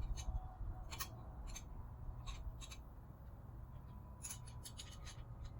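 Faint, irregular metal clicks and light scraping of hand tools working on engine parts, with a small cluster of clicks near the end.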